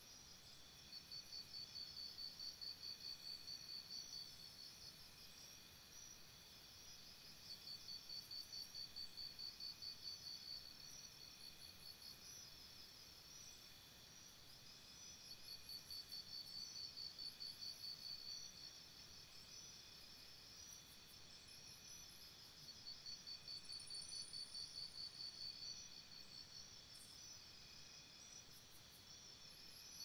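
Faint forest insect chorus: steady high-pitched buzzing, with a louder rapidly pulsing trill that comes in bouts of about three seconds, four times.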